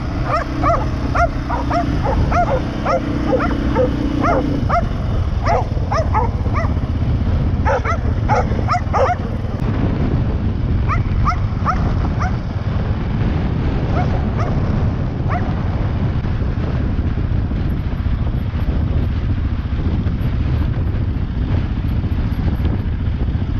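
A small dog barking in quick succession, a couple of barks a second, then more sparsely after about nine seconds until it stops around fifteen seconds in. Under it the CFMoto 520S ATV's engine runs steadily.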